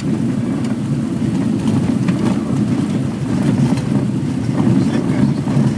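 Light aircraft's piston engine and propeller droning steadily, heard from inside the cockpit.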